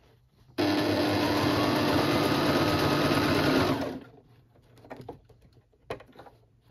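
Electric sewing machine stitching a seam through cushion-cover fabric, running steadily for about three seconds and then stopping. A few faint handling sounds follow.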